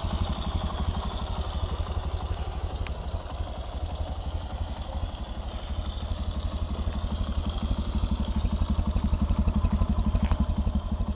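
Sachs MadAss 125's single-cylinder four-stroke engine idling steadily, with even exhaust pulses that grow a little louder near the end.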